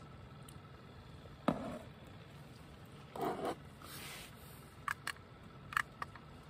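Handling noises as gear is moved about: a sharp knock about one and a half seconds in, a short scraping rustle a couple of seconds later, then a few light plastic clicks near the end as a small digital display is picked up.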